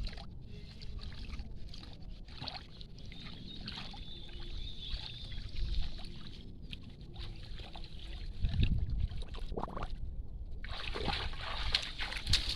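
Water sloshing and light, irregular splashing, as of someone moving through shallow water.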